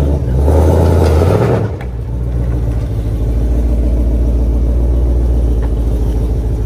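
Modified 2020 Shelby GT500's supercharged 5.2-litre V8, breathing through an upgraded exhaust with an X-pipe, running loud as the car rolls out. After less than two seconds it drops to a steady, deep idle.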